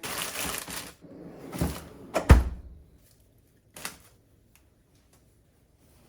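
Household handling noises: a rustle in the first second, then a few separate knocks, the loudest a solid thunk a little over two seconds in, then quiet.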